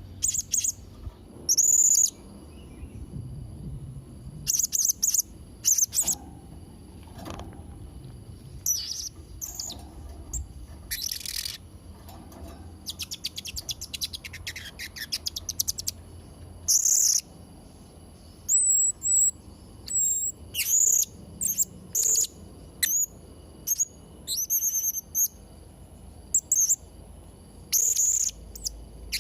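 Blue-crowned hanging parrot (serindit) calling: repeated short, shrill high-pitched calls with pauses between, and a rapid stuttering trill of about three seconds near the middle.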